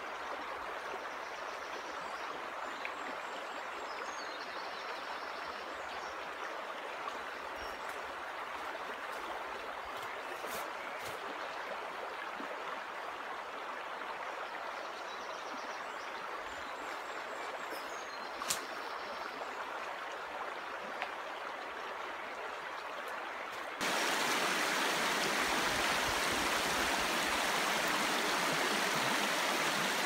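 River water running over rocks, a steady rushing that suddenly becomes louder and fuller about 24 seconds in.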